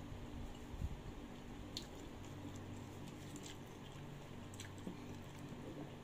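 Faint close-up eating sounds: chewing and soft, wet bites, with a few light clicks of wooden chopsticks against the food and bowl.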